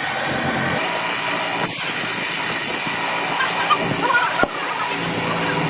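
A motor running steadily, with a low hum throughout and a few short high squeaks near the middle.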